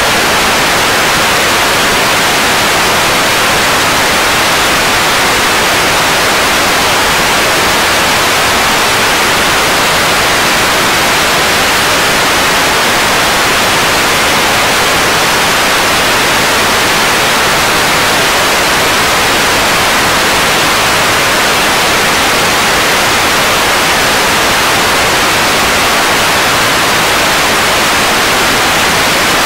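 Loud, steady static hiss like white noise, even and unbroken, with no tones, knocks or rhythm in it.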